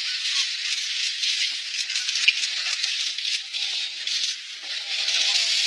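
Water splashing and sloshing as two brown bears wrestle and fight in shallow water: a steady spattering hiss full of small splashes.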